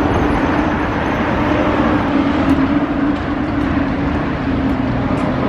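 Steady vehicle noise with a constant low hum running under it.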